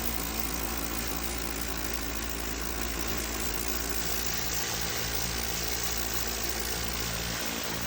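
Pressure washer running: a steady low hum under the constant hiss of spraying water.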